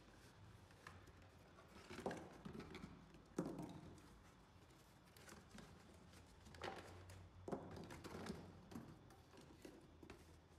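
Faint handling noise of cardboard packaging: rustles and light knocks as parts are lifted out of a box and set down on a table. The sharpest knocks come about two and three and a half seconds in, and a cluster follows around seven to eight seconds in.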